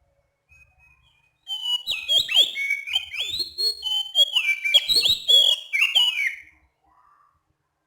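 Oriental magpie-robin (kacer) singing one phrase of about five seconds, starting about a second and a half in: clear, rhythmic whistled notes with quick slides up and down in pitch.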